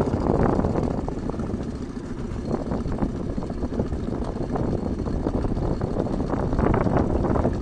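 Wind buffeting the microphone, an uneven rumbling rush that eases a little in the middle and picks up again near the end.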